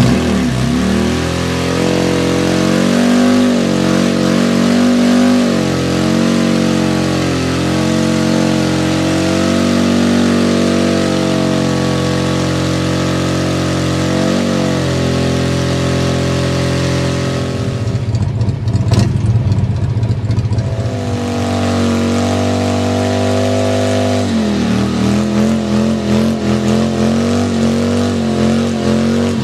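Harley-Davidson V-twin motorcycle engine held at high revs during a rear-tyre burnout. About two-thirds of the way through the revs drop to a lower, choppy, uneven beat for several seconds, then rise and hold high again.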